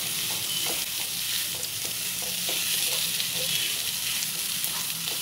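Crumbled khoya (mawa) being roasted and stirred in a non-stick frying pan with a wooden spatula. A steady high sizzling hiss runs under irregular soft scraping strokes of the spatula against the pan.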